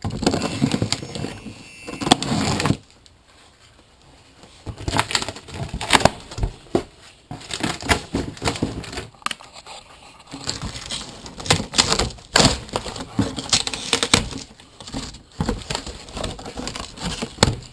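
Taped cardboard wheel box being opened: irregular rips, scrapes and knocks of packing tape and cardboard being torn and handled, with a quieter pause about three seconds in.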